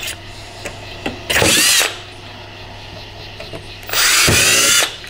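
Power drill boring holes through a 4L60 transmission separator plate, as the Transgo shift kit instructs: two short runs of the drill motor, about half a second a little over a second in, then about a second near the end.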